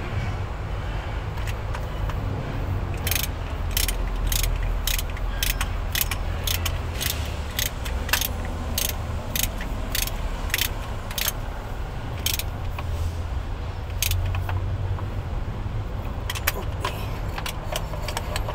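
Hand tools clicking sharply on metal fittings at a HOWO truck diesel's fuel injection pump, about one click every half second for some ten seconds with a few more near the end, over a steady low rumble.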